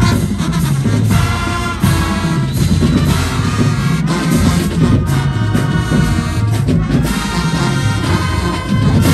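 A large marching band playing loud brass music: trumpets, trombones and sousaphones sounding sustained chords with heavy low notes, over a drumline.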